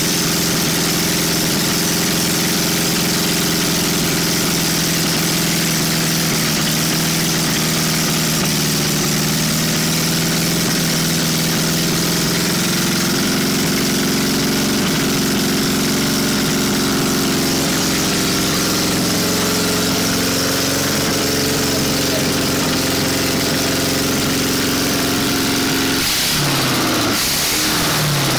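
Rebuilt air-cooled VW Beetle flat-four engine (a 1300 block with 1600 cylinders and pistons, a sharp cam and CT heads) running bare out of the car at a fast idle. Its speed steps up a couple of times, and near the end it is revved quickly up and down.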